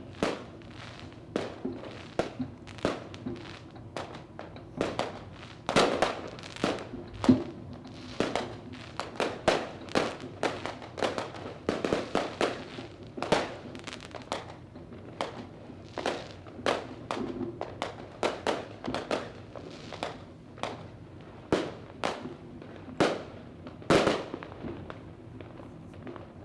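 Fireworks going off: a long run of sharp bangs at uneven intervals, often several in quick succession, some louder than others.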